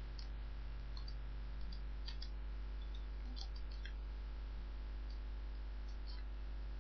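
Steady low electrical hum with a scattering of faint computer mouse clicks.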